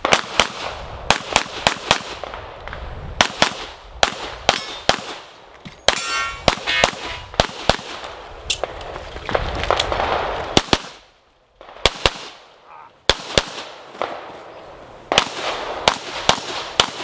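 Pistol gunfire from a practical-shooting stage run: shots in fast pairs and strings, broken by short pauses as the shooter moves, with a brief lull about eleven seconds in. A ringing metallic tone follows a shot about six seconds in.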